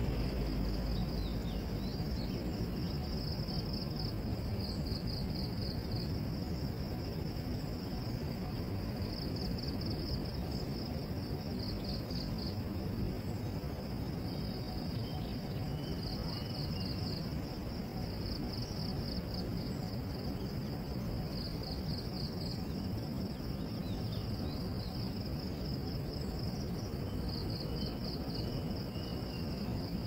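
Insects trilling in a high-pitched band, in pulsed bursts of a second or two that keep repeating, over a steady low background rumble.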